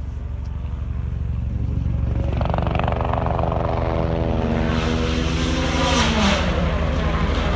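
A World Rally Car's turbocharged four-cylinder engine approaching at speed, getting louder from about two seconds in, its pitch climbing and dropping as it changes gear. A couple of sharp cracks come near the end.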